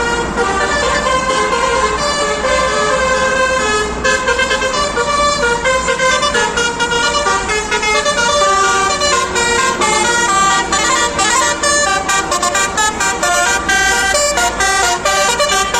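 Basuri 'telolet' multi-tone vehicle horn driven by a Takur module, playing a melody that steps between several pitches. From about ten seconds in the notes are chopped into rapid short blasts.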